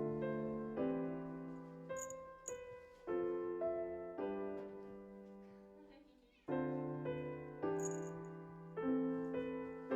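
Background piano music, slow chords struck and left to die away, with a short pause a little past halfway.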